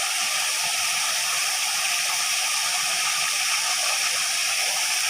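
Waterfall, a steady rushing hiss of falling water.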